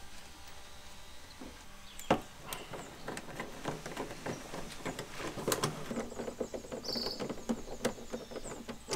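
Small clicks, taps and knocks of a hand tool against the plastic headlight housing and engine-bay trim of a Fiat Ducato camper van as its failed right front headlight is worked on. It begins about two seconds in with one sharper knock, then a busy run of small clicks, with a short high squeak about two-thirds of the way through.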